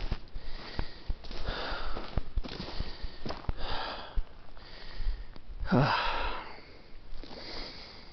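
Hard, heavy breathing of a hiker exhausted from a steep climb at altitude, a breath about once a second, with a louder voiced exhale falling in pitch just before six seconds in. Short clicks and scuffs run underneath.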